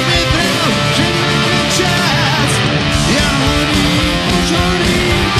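A three-piece rock band playing live: distorted electric guitar with bending notes over bass guitar and drums.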